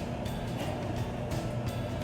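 Background music, playing steadily.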